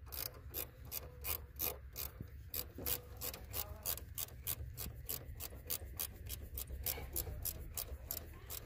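Small ratchet wrench clicking rapidly, about four clicks a second, as it turns a nut on a car battery terminal clamp to fasten an amplifier power cable.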